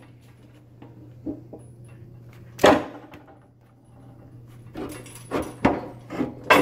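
Steel side panel and guide rail of a storage lift knocking against the metal basket and its cam followers as it is lowered into place: one loud clunk about two and a half seconds in, then a run of lighter knocks near the end.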